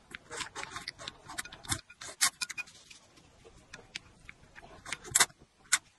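Close-miked eating: a slurp of noodles in broth, then wet chewing with many sharp mouth clicks and smacks.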